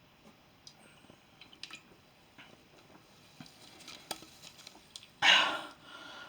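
Faint swallowing and small clicks as a drink is chugged from a can, then a short loud breath out about five seconds in.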